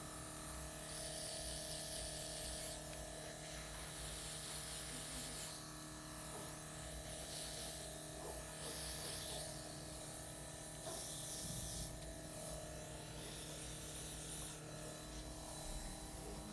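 Airbrush makeup machine: its small compressor motor hums steadily while the airbrush gives off hissing spurts of spray, several seconds at a time.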